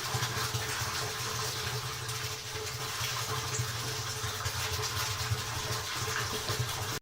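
Water pouring steadily from the sink's drain line into a sump pit, with a steady low hum underneath.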